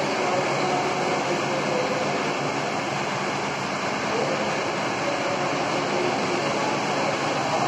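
Steady rushing noise of electric wall fans running in a large hall, with faint indistinct voices underneath.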